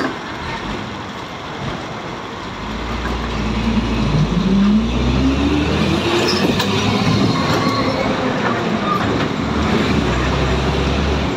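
City bus engine pulling away: it grows louder about two and a half seconds in, and its pitch rises steadily for a few seconds before levelling off. This is heard from inside the bus, over road noise.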